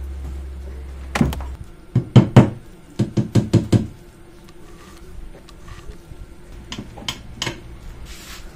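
A run of sharp knocks as a metal car-seat frame is handled and bumped against the workbench. There are a couple around a second in, then a quick run of about eight between two and four seconds, and a few softer ones near the end.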